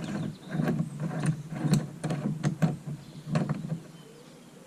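Ratchet wrench working a bolt on the car: a run of irregular metallic clicks and knocks, about two a second, that stops about three and a half seconds in.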